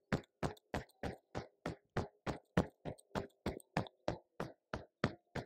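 A cupped hand patting the back of the opposite shoulder through a sweatshirt, about five quick, even pats a second.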